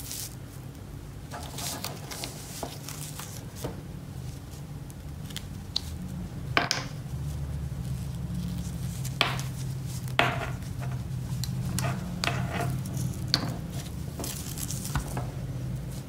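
Gloved hands handling a gaming mouse's braided USB cable and plug on a wooden desk: scattered sharp clicks and taps with soft rustling, over a steady low hum.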